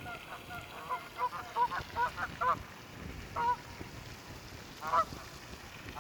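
Canada geese honking: a quick series of short honks about a second in, then single honks near the middle and again about five seconds in.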